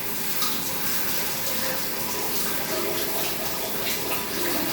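Shower water running steadily, spraying onto a cat's fur as the shampoo is rinsed out.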